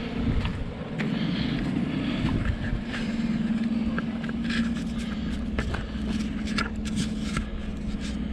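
Vehicle engine running steadily, with scattered light rattles and clicks.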